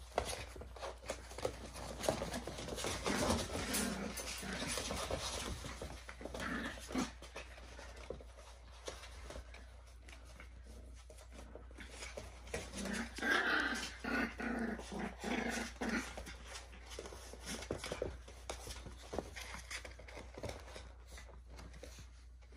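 Miniature schnauzer puppies play-growling and yipping as they wrestle, with scattered small clicks and scuffles; the growls come in short spells, busiest a little past the middle.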